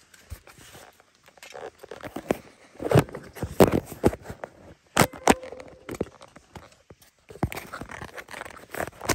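Irregular clicks, knocks and rubbing from hands handling plastic car-door trim parts and a phone held close to them. The loudest knocks come about three and five seconds in.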